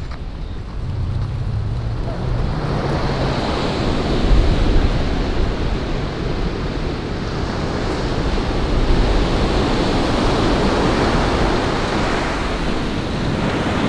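Ocean surf breaking and washing up a sandy beach: a steady wash of noise that swells and eases as waves come in, with wind rumbling on the microphone.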